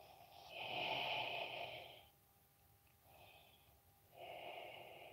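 A person breathing audibly into a close headset microphone, three breaths: a long one about half a second in, a short faint one around three seconds, and another toward the end.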